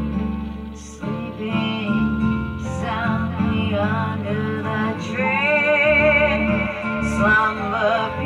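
A recorded song playing: plucked guitar accompaniment under a melody line with vibrato.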